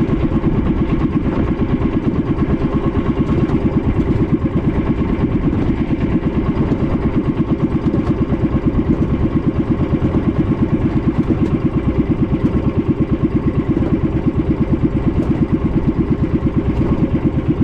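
A small boat's engine running steadily with an even, fast chugging beat, heard up close from on board. It cuts off suddenly near the end.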